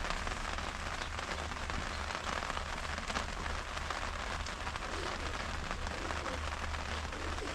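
Steady rain falling, an even hiss of many small drops with scattered sharper drop ticks.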